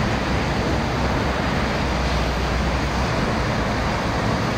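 Rough, storm-churned sea with waves breaking on the beach: a steady rushing noise with a low rumble underneath.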